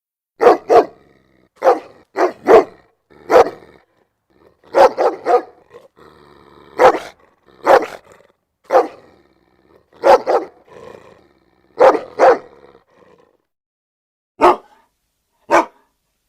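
A dog barking in loud, sharp barks, singly and in quick pairs or threes, with irregular pauses of about a second between them.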